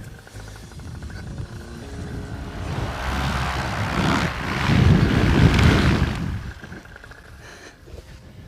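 Paramotor engine and propeller throttled up for a forward launch. The sound swells to a loud peak about five seconds in, then drops back as the throttle is eased off.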